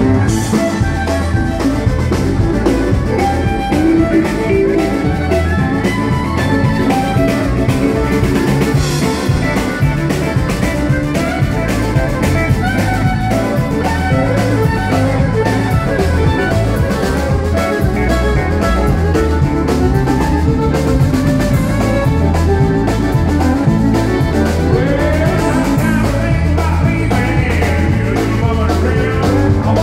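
Live country band playing loudly and steadily: electric guitars over a drum kit, with keyboard and fiddle.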